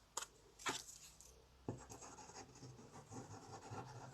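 Paper and cardstock being handled and pressed down: a few light taps in the first two seconds, then faint scratching and rubbing.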